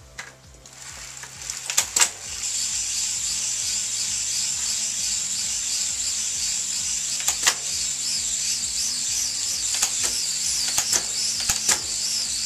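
Rear tyre spinning against the roller of a JetBlack Z1 fluid bike trainer as the bike is pedalled: a high, steady whir that builds up over the first two seconds and then holds, with a few sharp clicks from the bike along the way. Background music plays underneath.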